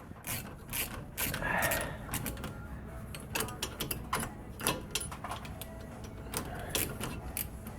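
Ratchet wrench clicking in short irregular runs as a nut is turned on a long bolt threaded through the hub flange, jacking the wheel hub bearing out of the steering knuckle; the hub is coming out easily.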